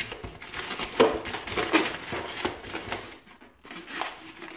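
Inflated latex modelling balloons rubbing and squeaking in the hands as one is twisted and bent into a loop, in irregular bursts, loudest about a second in, with a short lull a little after three seconds.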